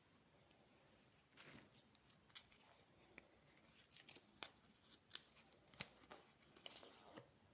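Candy packaging being handled and opened: faint crinkles, short rips and sharp clicks from about a second in until near the end.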